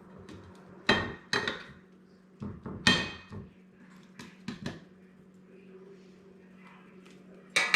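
Kitchen handling noise: a string of sharp knocks and clinks of utensils, a bowl and an air fryer basket while chicken is moved from the egg wash into the basket, with a louder clatter near the end.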